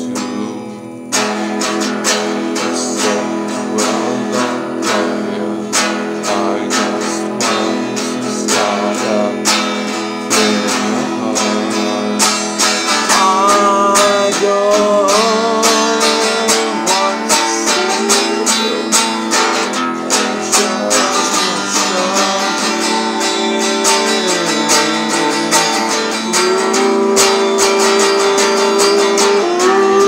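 A man singing while strumming a guitar, with steady, quick strumming that breaks off briefly just after the start. Long, held sung notes come in over the strumming in the second half.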